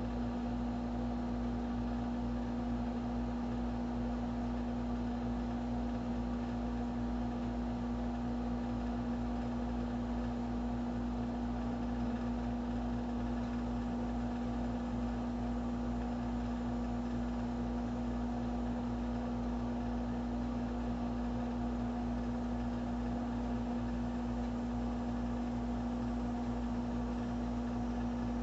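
A steady, unchanging hum with one strong low tone over a faint hiss, like a running motor or an electrical appliance.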